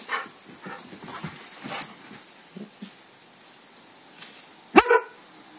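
A dog gives one loud bark in two quick parts near the end, after a few seconds of scattered softer sounds.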